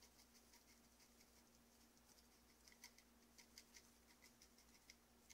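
Faint, irregular light ticking of a pizza seasoning shaker being shaken over a pizza, the dried seasoning pattering onto it. A low steady hum runs underneath.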